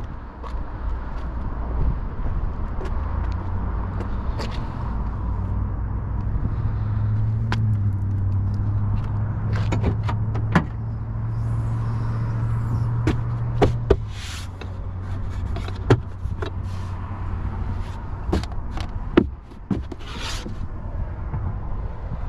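Steady low rumble with a low hum through the middle, broken by several sharp clicks and clunks as the hood of an electric Volvo XC40 Recharge is unlatched and lifted by hand to open the front trunk.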